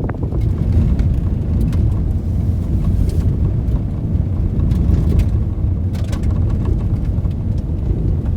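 Steady low rumble of a motor vehicle running along, engine and road noise, with a few faint clicks.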